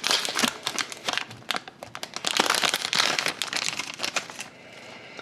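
A sealed trading card pack's wrapper crinkling as it is torn open and handled, with dense crackling that dies down about four and a half seconds in.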